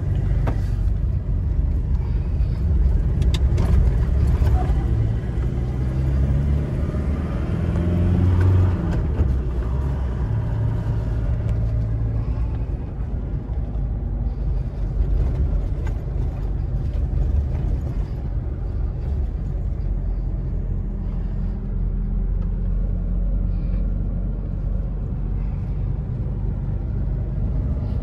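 Steady car road noise heard from inside the cabin while driving: low engine and tyre rumble. About a third of the way in, the engine note rises as the car accelerates.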